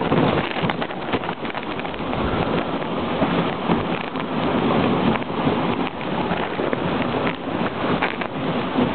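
A dogsled moving over snow: a steady rushing noise of the runners on the snow, full of small crackles, with wind on the microphone.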